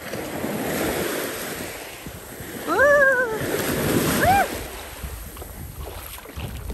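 Small waves washing in over the sand and around bare feet at the water's edge. Two short high cries, each rising then falling, come about three and four seconds in.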